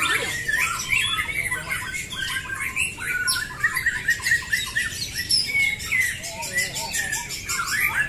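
Many caged white-rumped shamas (murai batu) singing at once in competition: a dense, overlapping mix of rapid chirps, whistles and trills that never pauses.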